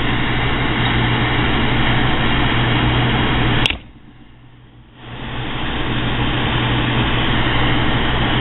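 Handheld gas torch burning with a steady hiss as a steel screwdriver shank is heated in its flame. A sharp click sounds about a third of the way in. The hiss then drops away for about a second and swells back up.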